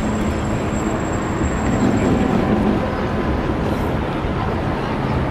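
Street traffic: vehicle engines and tyres, a steady mixed noise.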